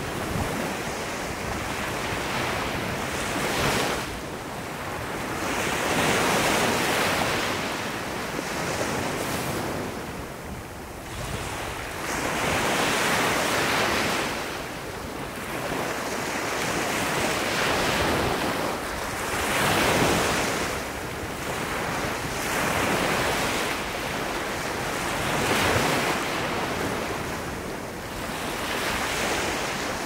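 Small sea waves breaking and washing up onto a sandy beach, the surf swelling and ebbing every few seconds.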